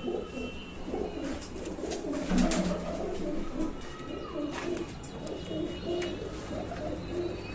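Many domestic high-flyer pigeons cooing together: a continuous chorus of low, overlapping coos.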